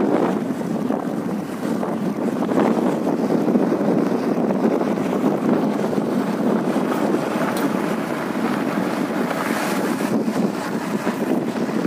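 Steady wind buffeting the microphone from a vehicle moving along a dirt road.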